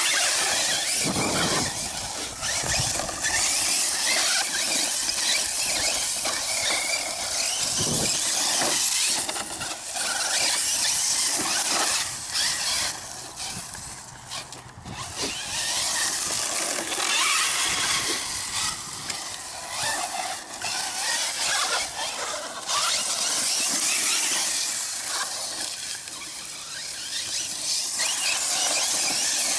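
Electric 1/8-scale RC truggy driving hard over rough, rocky ground: a high squealing whine from its motor and drivetrain, mixed with the tyres crunching over stones, swelling and easing with the throttle. Just before, the owner says the squeal does not sound good at all, after debris had earlier got into the spur gear.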